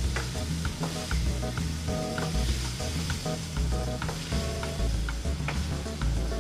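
Diced food sizzling as it fries in a steel wok, with a wooden spatula scraping and stirring it as it is scooped out, over background music.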